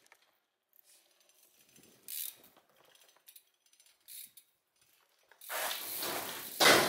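BMX bike rolling on concrete: a few faint metallic clicks and ticks, then from about five seconds in a loud rushing noise of tyres on rough ground, with a sharp thump near the end.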